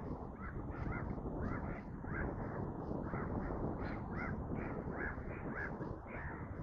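Several birds calling over and over in short, loud cries, two or three a second, over a steady low rumble.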